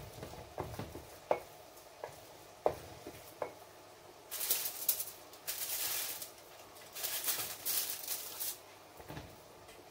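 Kitchen handling sounds during food preparation: a few light knocks in the first few seconds, then three stretches of rustling about halfway through.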